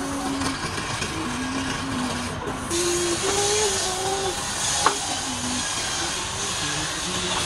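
Wood lathe spinning a workpiece while a turning tool cuts into it, giving a steady hiss that grows brighter about three seconds in. A single sharp tick comes near the five-second mark.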